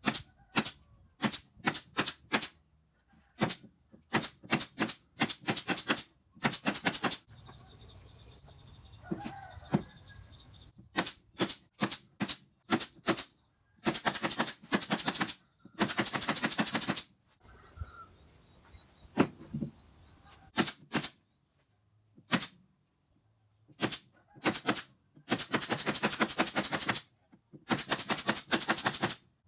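A power tool driving fasteners into the wooden panels of a subwoofer enclosure. It makes bursts of rapid clicking, some brief and some lasting one to three seconds, with pauses between.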